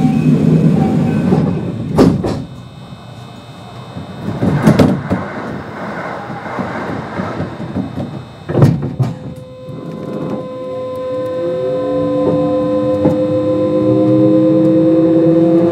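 Kintetsu 5200 series train pulling out of a station. First come several heavy clunks and hissing bursts as the doors shut. Then, about ten seconds in, the Mitsubishi GTO-VVVF traction inverter starts up with steady tones and rising whines that grow louder as the train accelerates.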